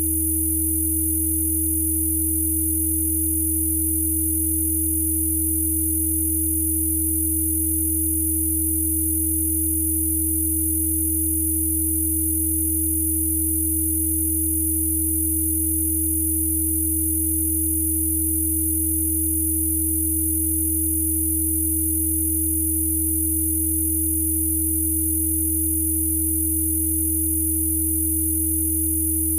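Spooky2 Rife frequency tones: several synthesised sine tones held steady together, a low hum under a clear mid-pitched tone and a faint high whine, with no change in pitch or level.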